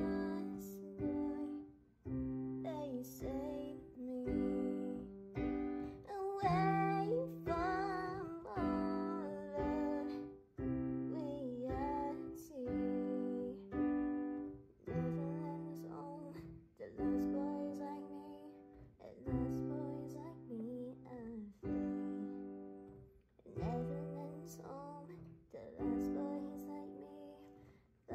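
Kurzweil digital piano played in a piano voice, with chords struck about once a second and each left to fade. A girl's voice sings the melody over them.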